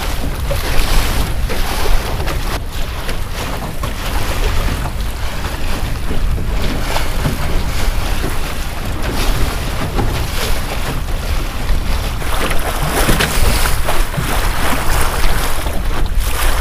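Wind buffeting the microphone over the rush of choppy water along the hull of a small sailing skiff under way, with frequent splashes as the bow meets the waves.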